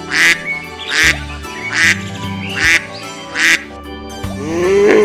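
Domestic ducks quacking, five short raspy quacks about one every second, over background music. Near the end a louder, lower animal sound builds up.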